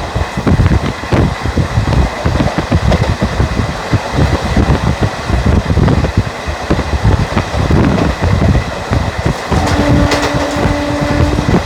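Indian Railways ICF passenger coach running on the track: a loud, steady rumble of wheels on rails with constant rattling. Near the end the WCAM2 locomotive's horn sounds one short, steady low note lasting just under two seconds.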